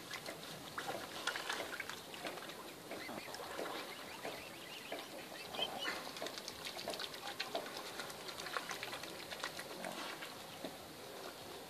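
Juvenile mute swans calling softly on the water, short calls scattered among many small clicks and splashes from the birds feeding at the surface.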